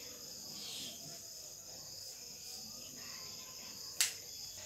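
Steady high-pitched chirring of crickets, with a single sharp click about four seconds in.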